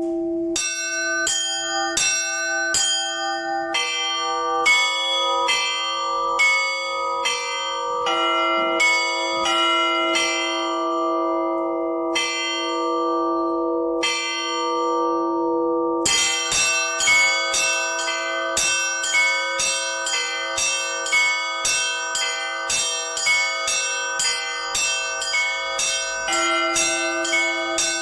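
Orthodox church bells rung by hand by a bell ringer: a low bell's tone hangs beneath patterns of struck smaller bells. The strikes come steadily at first, thin out for a few seconds about halfway, then pick up into a fast, dense peal.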